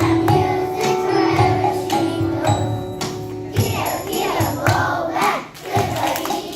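Music with held notes over a jingling beat; about three and a half seconds in, the music gives way to a group of voices singing or calling out together.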